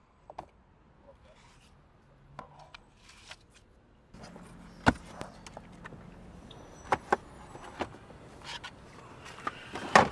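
Sharp clicks and knocks from something being handled inside a car, a few at a time at irregular intervals, the loudest at the very end. A faint steady low hum comes in about four seconds in.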